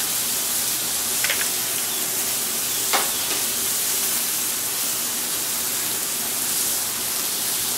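Steaks, sliced mushrooms and rice sizzling steadily on a hot flat-top griddle, with one sharp tap about three seconds in.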